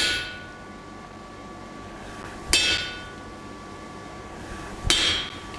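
Hand hammer striking a hot chisel driven into a red-hot steel bar on the anvil: three heavy blows about two and a half seconds apart, each leaving a metallic ringing tone that lingers. The chisel is being driven deep along a scored groove to split the bar.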